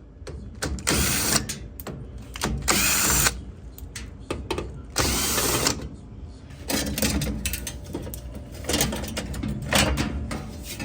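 Power drill/driver running in short bursts, about three of them, taking screws out of a washer's cabinet panel to get at the water valve. Between and after the bursts come clicks and rattles of the panel and screws.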